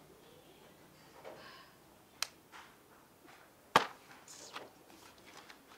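Two sharp clicks about a second and a half apart, the second the louder, with faint rustles between them: a pen and the paper pages of a notebook being handled.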